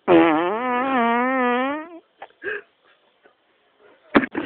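One long, pitched bodily gas noise from a person, wavering in pitch for nearly two seconds. Two short faint sounds follow, then a sharp click near the end.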